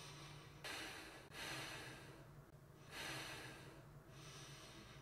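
Faint, slow breathing: about three soft breaths, each swelling and fading over about a second.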